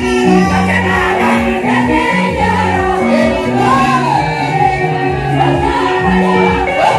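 Live gospel praise singing: a group of women sing together into microphones over band accompaniment with a moving bass line and a steady beat.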